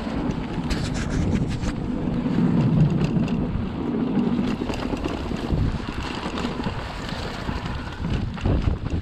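Wind rushing over an action camera's microphone while riding a full-suspension e-mountain bike downhill on a trail, with tyre rumble and scattered sharp clicks and rattles from the bike over the ground.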